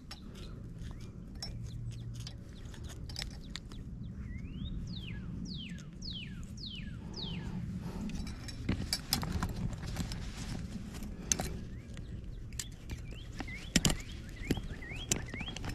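A bird calls a series of about five falling whistled notes a few seconds in, over a steady low background rumble, with scattered light clicks and taps through the second half.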